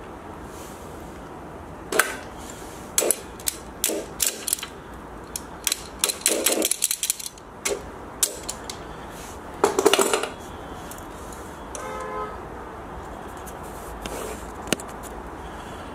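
Sharp metal clinks and knocks with a quick rattle about six seconds in and a brief ringing tone near twelve seconds: tools and a steel pulley being handled while a broken drill bit is worked out of the keyway hole.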